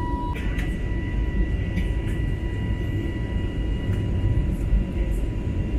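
Steady cabin noise of an Airbus A320neo with CFM LEAP engines: a low, even rumble of engines and airflow with thin, steady high whining tones. A steady tone cuts off just after the start.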